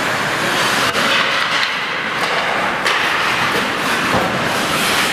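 Ice hockey rink noise during play: a steady din of the arena, with two sharp knocks about one and three seconds in.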